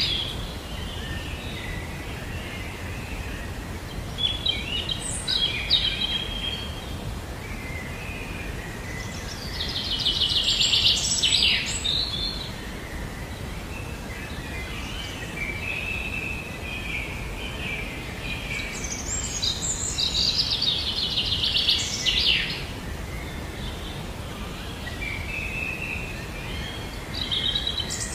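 Songbirds singing and chirping over a steady low rumble of background noise, with louder trilled song phrases a little before the middle and about two-thirds of the way through.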